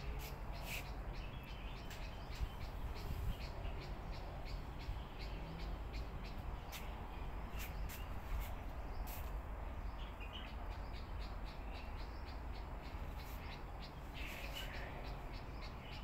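Small birds chirping over and over, in short sharp notes scattered throughout, over a steady low hum.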